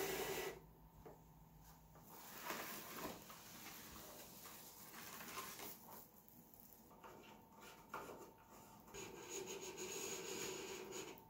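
Faint handling noise as a model airplane's wing is worked along its carbon wing tube and around a padded foil wing bag: light rubbing and rustling with scattered small knocks, and a steadier rub near the end.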